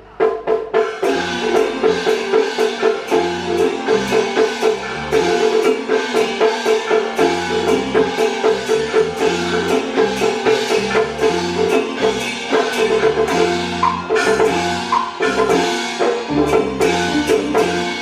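Taiwanese opera band playing an instrumental interlude: a steady, rapid beat of wood-block and drum strikes under a melody and a low bass line.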